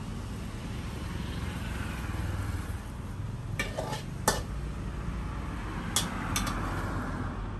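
Metal spatula scraping and clanking against a steel wok during a stir-fry, with a handful of sharp clinks in the second half, over the low rumble of road traffic going by.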